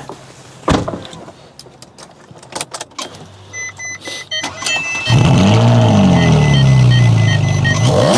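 A few clicks and knocks, then a car's warning chime beeping repeatedly. About five seconds in, the engine starts with a sudden loud flare in revs that rises and then falls back to a steady idle.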